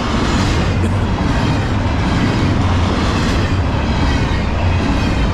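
Double-stack intermodal freight cars rolling past at about 50 mph: a loud, steady rumble of steel wheels on rail.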